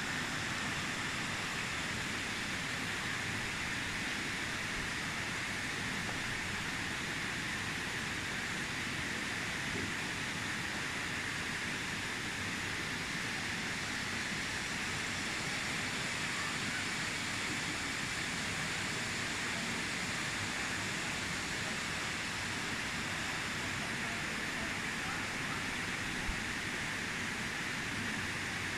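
Steady, even rush of flowing water from a rocky mountain stream.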